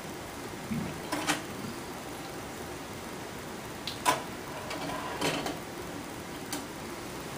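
Steady hiss of an aquarium's air-stone bubble curtain, with a few short knocks and clicks on top, the loudest about a second in and about four seconds in.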